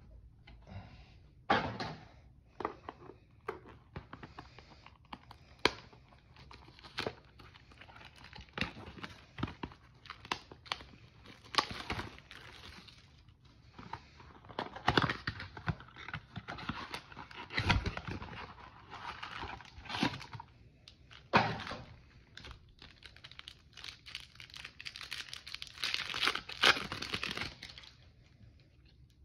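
A cardboard trading-card blaster box being torn open, and its packs and cards handled: cardboard tearing, packaging crinkling, and cards tapping and sliding against each other. A run of sharp clicks and taps, with longer rustling stretches about halfway through and near the end.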